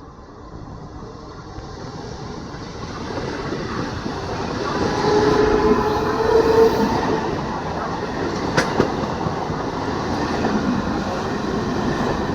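Electric multiple unit (EMU) local train approaching and running past, its wheel and rail noise building over the first five seconds and then holding loud and steady. A short tone sounds over it around the middle, and there is a single sharp clack later on.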